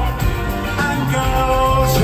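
A live rock band playing a song, with held notes over a full, steady backing.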